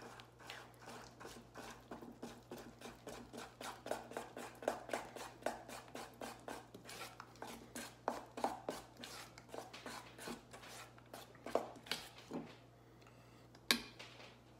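A utensil stirring thick icing of icing sugar and syrup in a stainless steel bowl, scraping and clinking against the bowl at about four strokes a second. The stirring stops about two seconds before the end, followed by one sharp knock.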